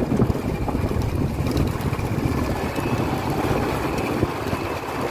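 Wind buffeting the microphone on a moving motorcycle, a loud steady rumble, with the motorcycle running underneath it.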